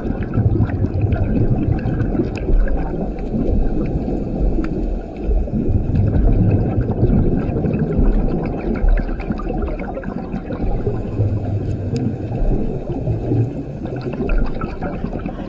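Scuba diver's regulator breathing underwater, heard through a GoPro housing: a steady low rush that swells three times into rumbling bursts of exhaled bubbles.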